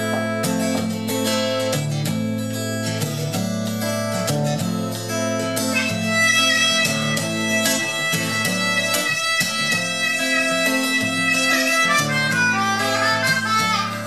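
Acoustic guitar strumming a steady chord pattern while a harmonica, cupped against a handheld microphone, plays along. About six seconds in the harmonica comes forward with long held notes, and it plays a quick run of notes near the end.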